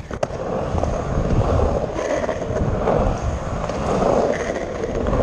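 Skateboard dropping in on a vert ramp: a sharp click just after the start, then the wheels rolling loudly on the ramp, swelling and fading about once a second as the board rides up and down the transitions.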